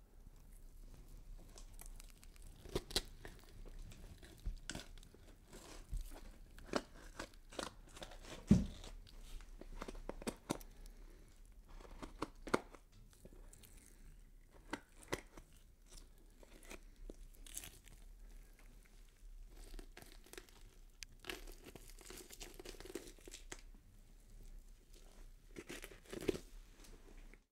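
Horror sound effect of skin being cut and peeled: irregular wet tearing, crinkling and crunching, with sharp cracks scattered throughout, the loudest about eight and a half seconds in.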